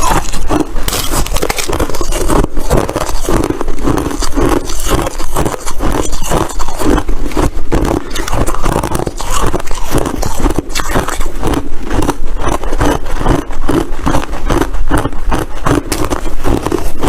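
Crunchy white ice being chewed, a dense, irregular run of loud crackling crunches.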